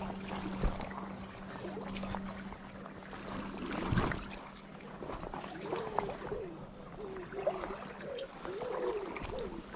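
River water trickling and running, with a few light knocks and, in the second half, a wavering low warble over the water.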